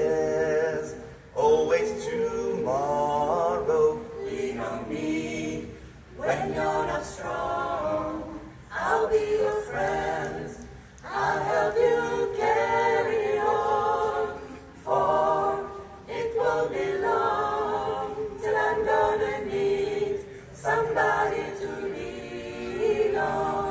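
Five-voice a cappella vocal group, three women and two men, singing in close harmony through microphones, in phrases with short breaks between them.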